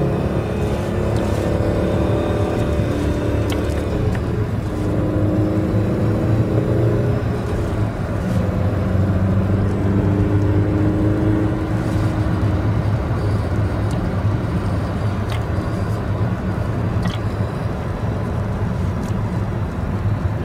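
Alfa Romeo 147's 2.0 Twin Spark 16V four-cylinder engine heard from inside the cabin while driving. The engine note rises under acceleration and drops back about four seconds in and again near seven seconds, then settles into a steadier cruise over low road and tyre noise.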